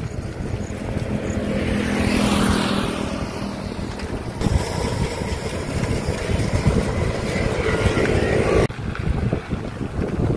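Road traffic and wind rumble heard from a bicycle on a highway. A motor vehicle passes about two seconds in, its engine note swelling and then dropping as it goes by. Other engines carry on behind the wind, and the sound shifts abruptly twice, near the middle and near the end.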